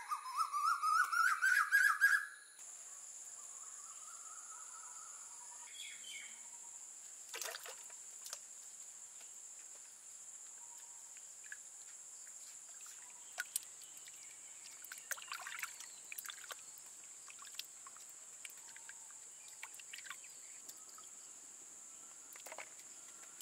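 A bird calls a quick run of about ten notes that climb in pitch, lasting about two seconds, over a steady high insect drone. After that the drone goes on, with soft water splashes and small clicks from hands washing durian seeds in a clay pot of water.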